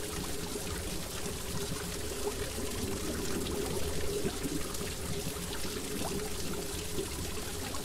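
Aquarium water trickling and splashing steadily, with many small faint ticks.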